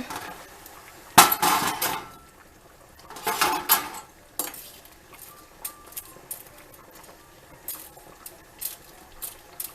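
Metal cooking utensil clanking against a soup pot: two short bursts of clatter about two seconds apart, then light scattered clinks.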